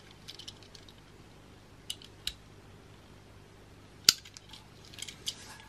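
Faint handling of a small die-cast toy car held in the hands, with a few light clicks and one sharper click about four seconds in.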